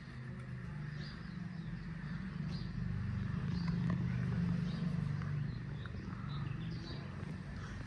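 A motor running steadily with a low hum, growing louder for a couple of seconds in the middle. Faint high chirps sound over it now and then.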